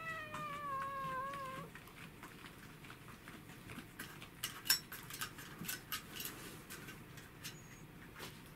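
A cat gives one long meow that falls slightly in pitch. A couple of seconds later comes a scatter of short, sharp clicks and ticks.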